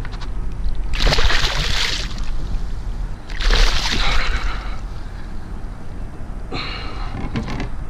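A hooked juvenile tarpon thrashing and splashing at the water's surface beside a small boat while it is grabbed by hand, in two bursts of splashing, about a second in and again about three and a half seconds in.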